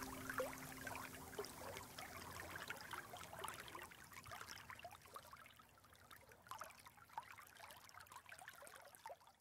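Faint running water of a stream, trickling and babbling, fading steadily away. The last held acoustic guitar notes ring out and die in the first two seconds.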